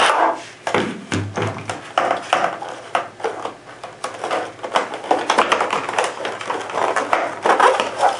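Stiff clear plastic clamshell packaging crackling and clicking as it is handled, with irregular taps and rustles as paper inserts are pulled out of it.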